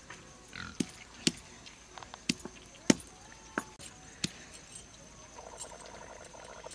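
Round hand-held stone knocking peeled garlic cloves against a flat stone grinding slab to crush them: a series of about six sharp, separate knocks at an uneven pace, the loudest near the middle.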